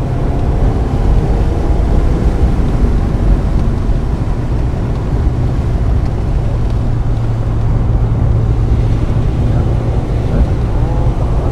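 1995 Mazda Miata's 1.8-litre four-cylinder engine running steadily under load on track, its pitch shifting a little as the car is driven.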